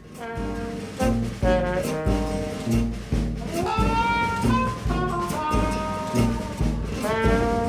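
Upbeat background music with brass, trombone and trumpet, over a steady beat.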